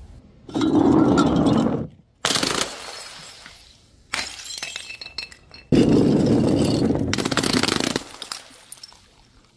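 Glass bottles smashing and shattering, several crashes one after another with abrupt cuts between them.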